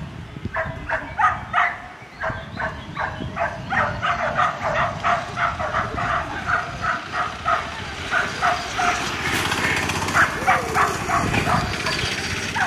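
A dog yipping in quick, high-pitched yips, about three a second, keeping on with only short breaks.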